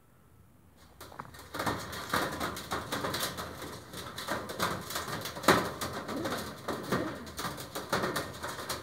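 Janssen racing pigeons cooing in a wire cage, amid many short clicks and rustles; it all starts about a second in.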